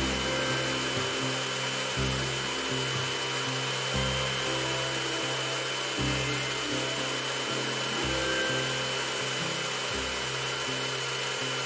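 Kärcher K2 Compact electric pressure washer running steadily, its motor and pump giving a constant hiss with a thin high whine as the lance sprays a jet onto wet concrete. Background music with a slow bass line changing about every two seconds plays over it.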